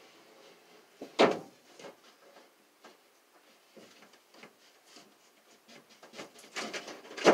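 A large plywood sheet being shifted and set onto a wooden bed-platform frame: one sharp wooden knock about a second in, faint taps and rubbing, then a run of knocks and scraping near the end.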